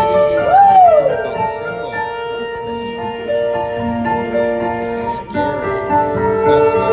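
Live band music: electric keyboards (a Nord Stage 2 EX and a Korg synth) holding sustained chords, with drums. One note swoops up and back down about half a second in.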